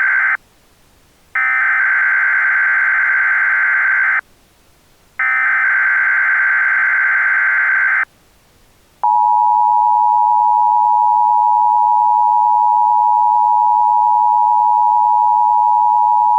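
Emergency Alert System SAME header: the tail of one burst of warbling data tones, then two more bursts of about three seconds each, a second apart. About a second after the last burst comes the steady two-tone EAS attention signal, which holds for about eight seconds. This is the start of a broadcast weather alert.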